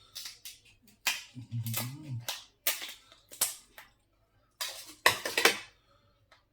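Shellfish shells being cracked and snapped apart by hand: a run of sharp, crackly snaps, loudest about five seconds in.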